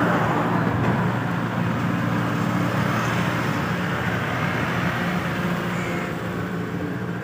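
Engine idling steadily: a low, even hum of constant pitch that fades a little toward the end.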